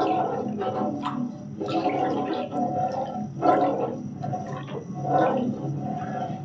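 Thick soy milk mixture being stirred in a non-stick frying pan with a wooden spatula: repeated wet sloshing strokes, about one every second or so.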